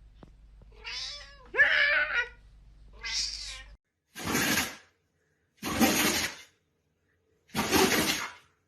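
An animal calling: three drawn-out wailing calls that rise and fall in pitch in the first half. Then three short hissing, breath-like noises follow, about two seconds apart.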